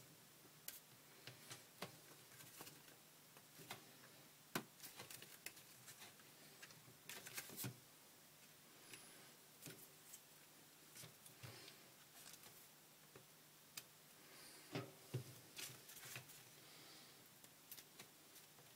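Near silence broken by faint, scattered clicks, taps and rustles of handling, a few of them a little louder.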